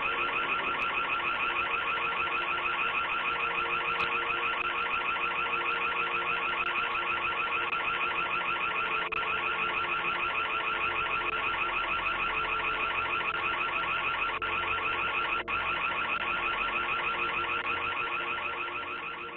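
An electronic alarm siren sounding continuously at a steady level, a high-pitched tone with a fast pulsing warble.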